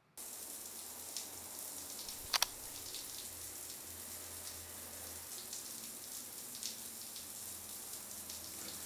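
Low, steady hiss of room tone with a few faint ticks, and one sharp double click about two and a half seconds in.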